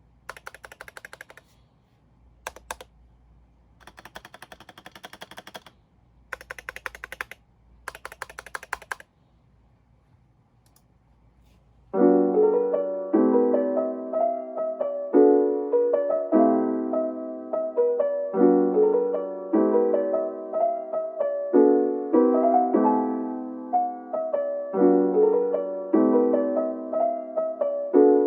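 Typing on a GMMK Pro mechanical keyboard with unlubed Gazzew Boba U4T tactile switches: several bursts of fast keystrokes with short pauses between. About twelve seconds in, mellow piano background music begins and carries on to the end.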